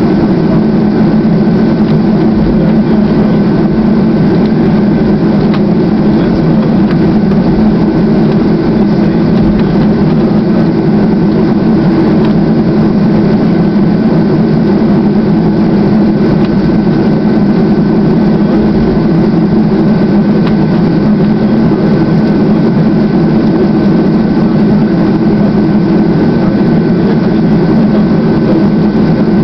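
Boeing 737-200's Pratt & Whitney JT8D jet engines running at low taxi power, heard from inside the cabin over the wing: a steady, loud low rumble with a thin whine held at one pitch.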